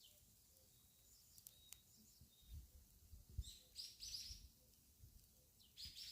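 Faint birds chirping: clusters of short, high chirps about halfway through and again near the end, with a few soft clicks earlier on.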